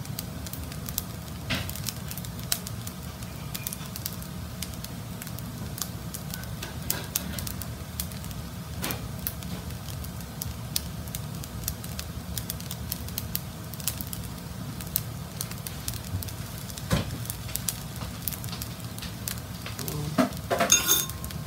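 Fried rice with peas and carrots sizzling in a frying pan over a gas burner: a steady low rush from the flame with scattered crackles from the frying rice. A few louder clatters come near the end.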